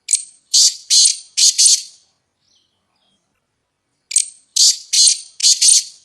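Red-legged partridge calling: two phrases of harsh, raspy notes, each a short first note followed by three or four rasping notes, the second phrase about four seconds after the first.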